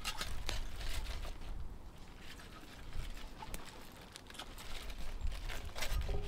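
Leafy greens (bok choy and napa cabbage) rustling and crinkling as they are packed by hand into a stainless steel pot, with scattered soft clicks, over a low rumble.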